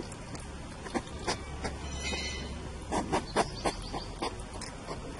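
Wild hedgehogs eating dog food from a bowl: irregular, sharp smacking and chewing sounds, with a brief hiss about two seconds in.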